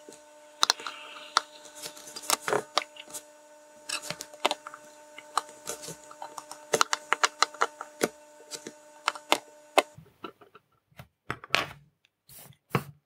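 Irregular sharp clicks and taps of steel tweezers and a soldering iron against a small circuit board and the desk during hand-soldering of tiny surface-mount LEDs, over a steady low hum that stops about ten seconds in.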